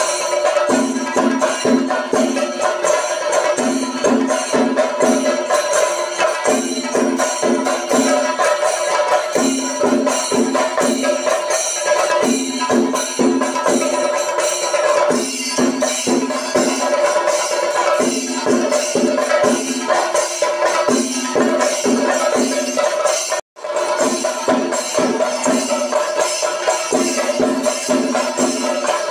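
Music driven by dense, fast hand percussion over a steady held drone, with a low note recurring in a regular pattern about every two seconds. The sound cuts out for an instant about 23 seconds in.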